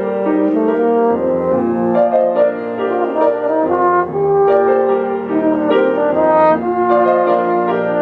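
French horn playing a melody of long held notes.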